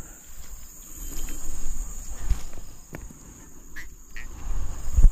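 Rustling and dull low thumps of hands handling a fish in grass and dirt close to the microphone. A steady high insect drone runs underneath, and the loudest thump comes near the end.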